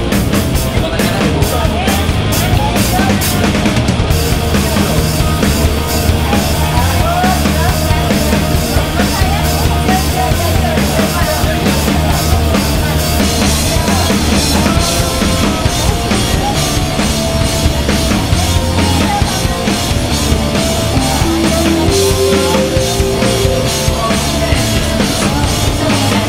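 Background music with a drum kit keeping a steady beat.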